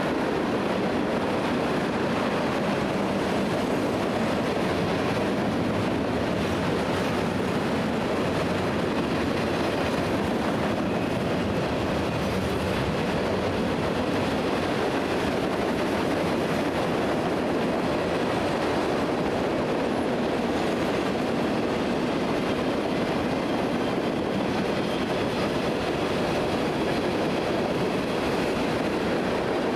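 Freight cars rolling past: a steady, unbroken noise of steel wheels running on the rails as a long train of gondolas, covered hoppers and tank cars goes by.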